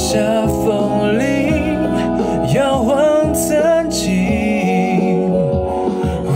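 A man singing a Mandarin pop ballad live over a backing track, his held notes wavering with vibrato.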